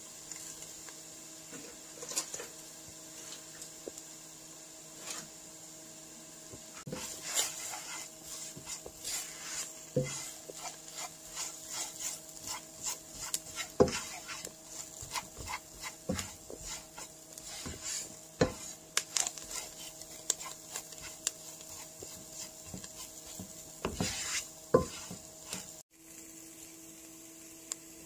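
A spatula stirring and scraping minced onion and spices around a nonstick frying pan, in quick repeated strokes and taps from about seven seconds in, over a faint steady hum.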